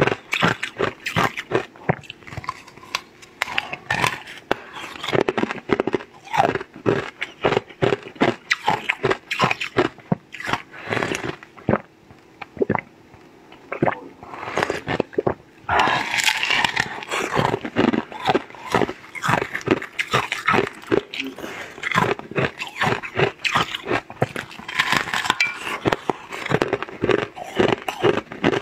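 Close-miked eating of a soft green jelly: rapid wet chewing and lip-smacking clicks. About sixteen seconds in there is a longer slurp as the jelly is sucked from its mould.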